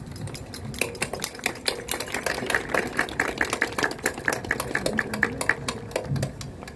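Clapping from a small audience: a quick run of claps that starts about a second in and thins out near the end.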